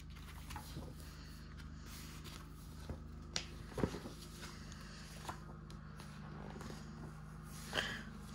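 Glossy pages of a large art book being turned and smoothed by hand: faint scattered paper rustles and taps, the loudest about four seconds in and near the end, over a steady low hum.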